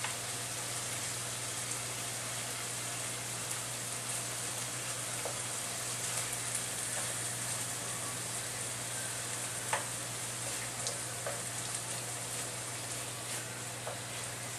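Thinly sliced pork frying in a sauce in a frying pan: a steady sizzle, with a few light clicks of wooden chopsticks against the pan as the meat is turned.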